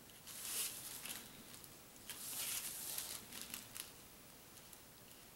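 Faint scratching of a DecoColor extra fine paint pen's tip drawn across a paper hang tag, in two strokes, the second longer.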